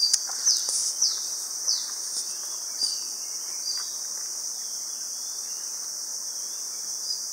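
Insects droning steadily at a high pitch, with short falling chirps repeating about every half second in the first couple of seconds, then only now and then.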